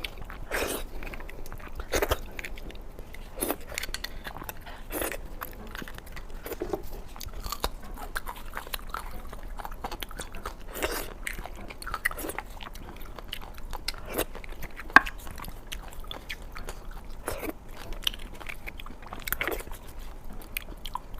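Close-miked eating: a person biting and chewing food, with irregular wet smacks and crunches about once a second.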